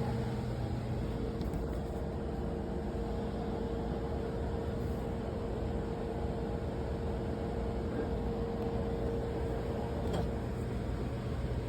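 A steady motor hum: an even rushing noise with a constant low tone that does not change, and a faint click about ten seconds in.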